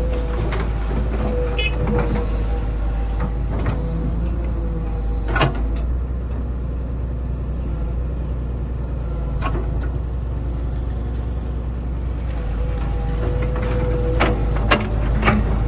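Excavator's diesel engine running steadily with a low rumble and a whining tone that fades in the middle and returns near the end, punctuated by sharp metallic knocks, a few scattered and several in quick succession near the end.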